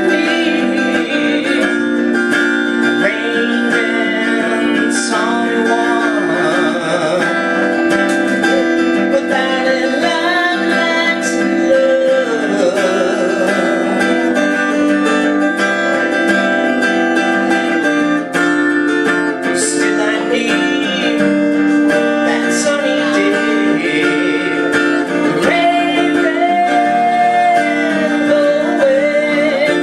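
Acoustic guitar strumming chords steadily, with a voice carrying a wavering melody over it at several points.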